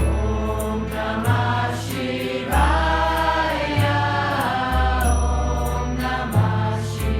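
Devotional mantra chanting (kirtan) sung by a group of voices over a bass line that changes in steps and a steady high percussion tick of about three a second.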